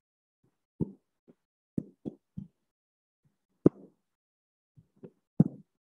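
A series of short, sharp taps and knocks, about six in all, the loudest a little past the middle and near the end: a digital pen striking the tablet screen as ink strokes are drawn.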